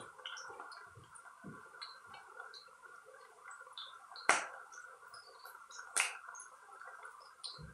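Onions and carrots frying in oil in a pot, faintly crackling with scattered irregular pops over a steady hum, with two louder sharp pops about four and six seconds in.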